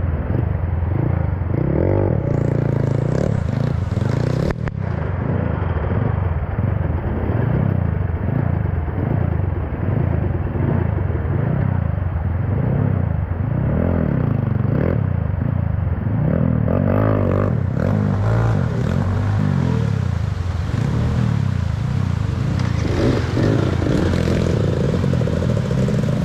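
Trail motorcycle engine revving up and down again and again, the revs rising and falling about once a second, with one sharp knock about four and a half seconds in.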